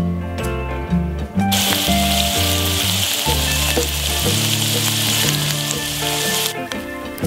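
Potato chunks frying in hot oil in a pan: a steady sizzle that starts about a second and a half in and cuts off near the end. Background music plays throughout.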